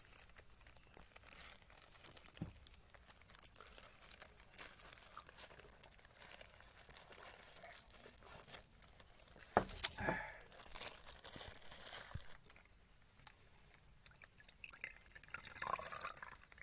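A person sipping and swallowing from a glass, faint, with small handling clicks and one sharper knock about ten seconds in.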